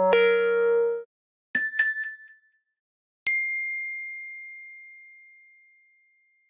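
Three Apple iPhone alert tones are previewed one after another. First comes a chime of about a second, then two quick dings, then a single high ding that rings on and fades away over a couple of seconds.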